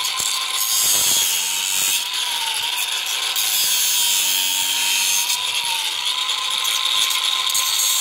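Angle grinder running with a steady whine, its cutting wheel trimming plastic clips off a truck's wiper cowl cover. The pitch dips slightly now and then as the wheel bites.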